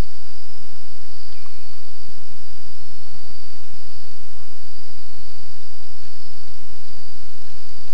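Steady chorus of insects such as crickets, a continuous high-pitched trill over a constant hiss.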